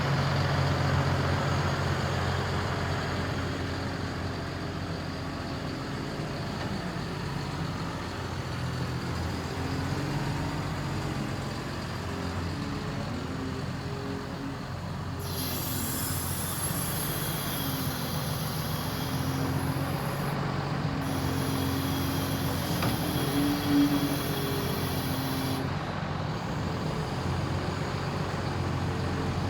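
Caterpillar 340F excavator's diesel engine running steadily, with tones above it that rise and fall in pitch as the machine works. A high, thin hiss comes in about halfway through and stops a few seconds before the end.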